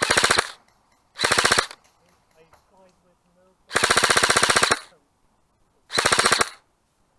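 Airsoft rifle firing on full auto in four short bursts of rapid, evenly spaced shots. The third burst, about halfway through, is the longest at roughly a second.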